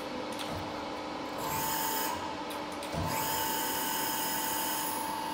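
Edwards Pearson 3 m, 60-tonne CNC press brake running: a steady machine hum, with a higher whine from its drives coming in briefly about a second and a half in and again from about three seconds on.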